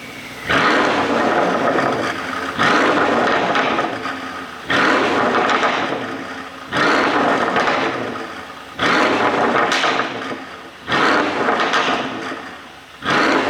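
Mercedes CLS63 AMG's 5.5-litre twin-turbo V8 exhaust being blipped over and over, a sharp rev about every two seconds. Each rev falls away with the crackles and pops of an ECU exhaust pop tune.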